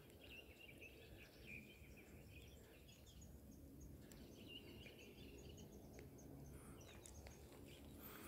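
Near silence: faint outdoor ambience with faint bird twittering in two spells, one starting soon after the beginning and another around four seconds in.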